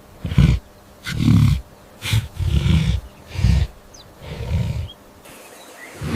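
A big cat's roar: a series of short, deep calls about a second apart, fading out after about five seconds.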